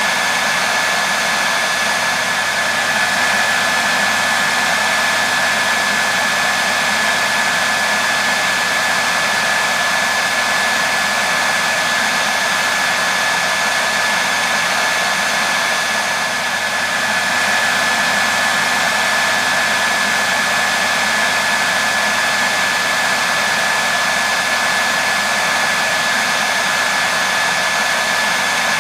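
Hair dryer running steadily, a continuous rushing blow with a steady high whine from its motor, used as white noise for soothing a baby to sleep.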